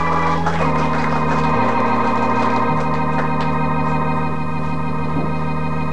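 Organ music: an electronic organ holding sustained chords over long bass notes, the chord changing every second or so.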